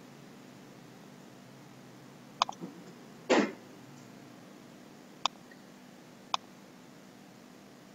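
Computer mouse clicking: a few single clicks about two and a half, five and six seconds in, over a steady low hum. A short cough about three seconds in is the loudest sound.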